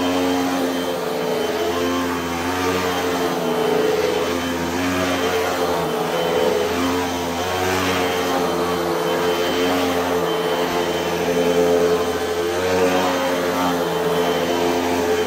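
Hoover WindTunnel upright vacuum cleaner running super loud over carpet, a steady motor drone with a rushing hiss of air, wavering slightly as it is pushed back and forth.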